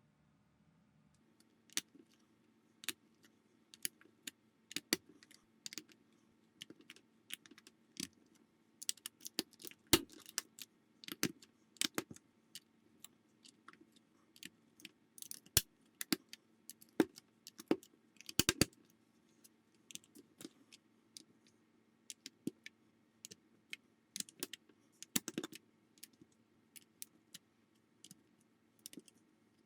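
Small plastic building bricks clicking and rattling as they are handled and pressed together, in irregular bursts of sharp clicks with a few louder snaps.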